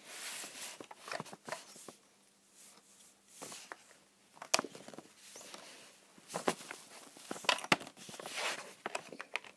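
Lego bricks being handled and pressed onto a baseplate on a tabletop: scattered sharp plastic clicks and knocks with rustling and scraping between them. The sharpest click comes about four and a half seconds in, and two more come near eight seconds.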